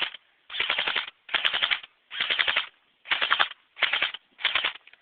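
Tokyo Marui MP5 RIS electric airsoft gun firing full-auto in six short bursts of rapid clicks, each about half a second long with brief pauses between.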